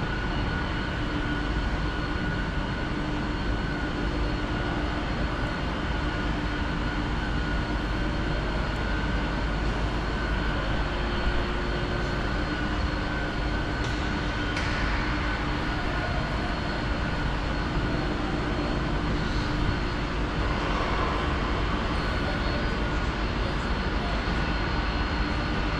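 Steady machinery drone with a few constant hum tones, and a short hiss about halfway through.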